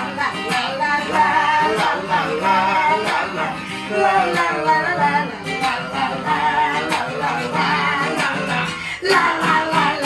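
Acoustic guitar strummed in a steady rhythm while a woman and a man sing along.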